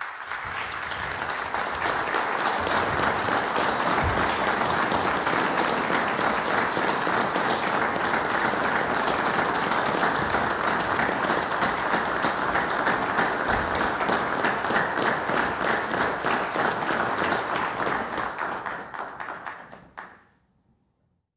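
Members of parliament applauding together in sustained, even clapping that builds over the first couple of seconds and fades out near the end.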